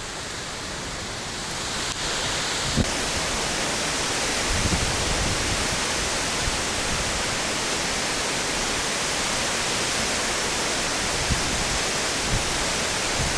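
Large waterfall's steady rush of falling water, growing louder about two seconds in.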